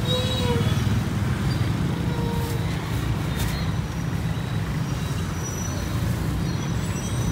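Steady street traffic, mostly passing motorbikes, heard as a continuous low rumble.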